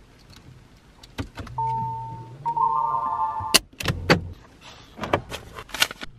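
A push-button car being started: a click, then electronic chime tones over a low engine hum as the engine starts. This is followed by several loud clunks and clicks as the automatic gear selector is moved out of Park.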